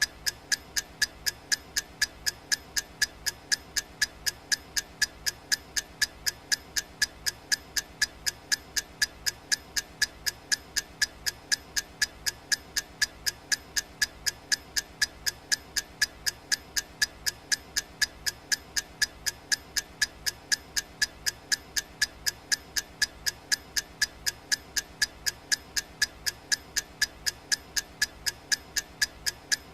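Clock ticking sound of a countdown timer: sharp, even ticks at a steady rate of about two a second, never changing.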